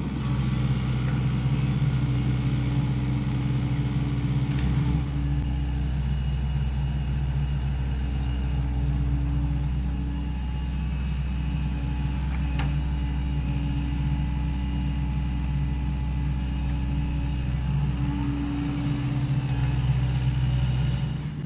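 Sany SY75 excavator's diesel engine running steadily as it works, its pitch wavering slightly with load, with a couple of faint knocks.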